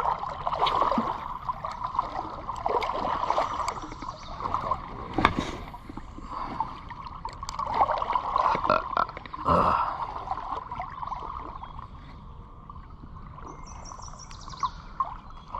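Creek water trickling and running steadily, with scattered clicks and knocks over it.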